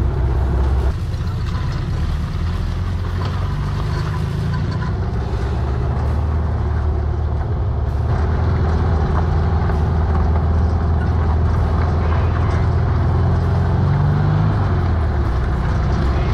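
Air-cooled flat-four engine of a 1958 VW Bus running under load while driving a dirt trail, its note rising and falling a few times as the revs change, over steady tyre noise on the dirt.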